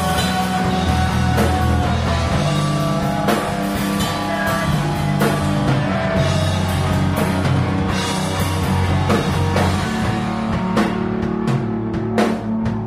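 Live rock band playing: drum kit and guitar, with steady drum strikes under sustained notes.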